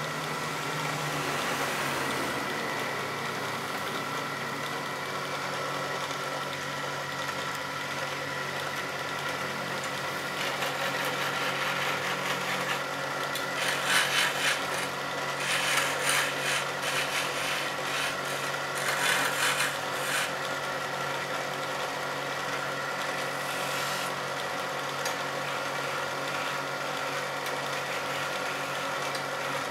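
Small wood lathe running steadily while a hand-held chisel cuts into a spinning wooden spindle blank. The scraping of the tool on the wood comes up in three louder bursts about halfway through.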